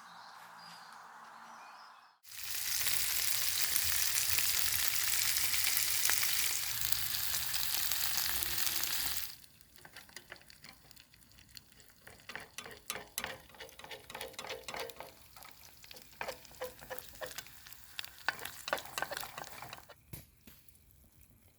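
Food frying in a pan: a loud, dense sizzle that starts suddenly about two seconds in and lasts about seven seconds, then drops to a quieter spitting with scattered crackles and pops.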